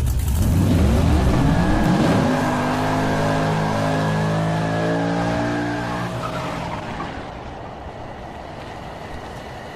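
A vehicle engine revving up, its pitch rising over the first two seconds, then holding steady and fading away over the last few seconds.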